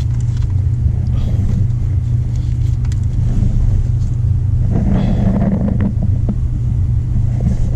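Steady low mechanical rumble, like a running engine, throughout, with faint scattered clicks and a short rustling scrape about five seconds in.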